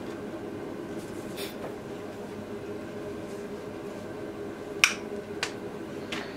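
Kitchen items handled by the stove: a few sharp clicks and taps of a bottle and utensils, the first and loudest nearly five seconds in, over a steady low hum.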